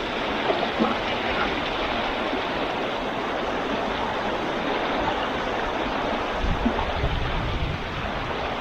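Creek water rushing steadily past, a full, even flow.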